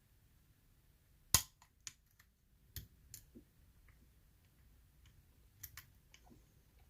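Small sharp metallic clicks of a challenge lock being single-pin picked: one crisp click about a second and a half in, then a handful of fainter clicks from the pins and picking tools.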